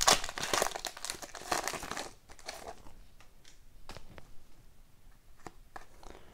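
Foil trading-card pack wrapper crinkling as it is torn open and crumpled, dense for about two seconds. Then sparse, quieter clicks and rustles of the cards being handled and slid through the hands.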